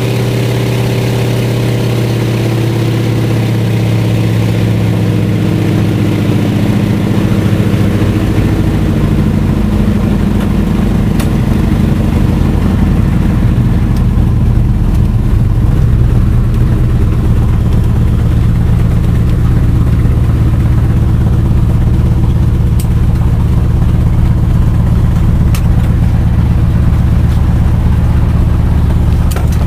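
Float plane's engine and propeller heard inside the cabin, throttling back: the engine note falls in pitch over the first several seconds and the rushing air fades, then it settles into a steady low drone.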